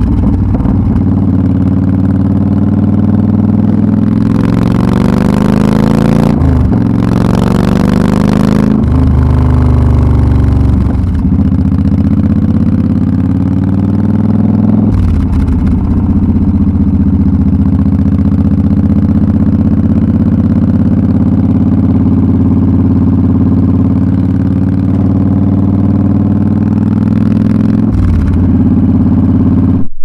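Yamaha V Star 1300's V-twin engine exhaust, recorded close up while riding. The engine pulls up through the gears, and its pitch drops at each of two upshifts in the first ten seconds. It then runs at a steady cruise with a few throttle changes.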